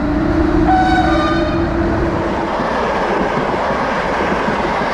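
A train rolling along the rails with a steady rumble. A held low tone runs through the first couple of seconds, with brief higher tones about a second in.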